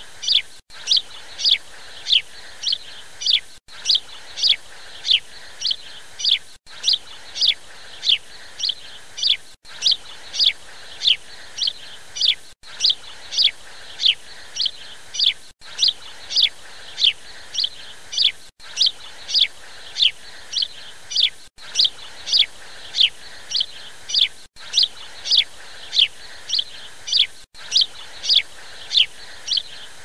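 Birds chirping in short, high, falling notes about two a second, in a recording that loops every three seconds with a brief dropout at each seam.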